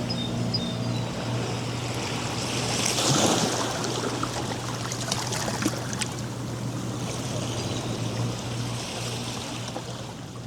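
Ocean surf at a sandy beach: waves breaking and washing up the shore, with a bigger wave surging about three seconds in. A steady low hum runs underneath, a few faint bird chirps come near the start, and the sound fades toward the end.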